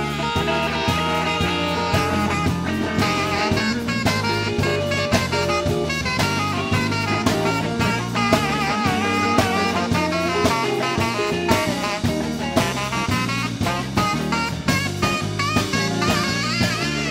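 Live blues band playing an instrumental stretch. An electric guitar plays a lead line with bent, wavering notes over a stepping bass line and steady drums.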